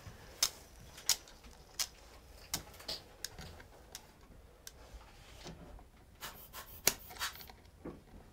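A series of small, sharp metal clicks at irregular intervals from needle-nose pliers gripping and bending a wire hanging loop on the soldered corner of a stained-glass panel.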